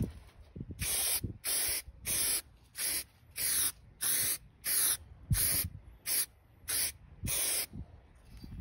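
Aerosol can of stone-chip coating sprayed in about ten short hissing bursts, each under half a second, at roughly one and a half a second, stopping near the end.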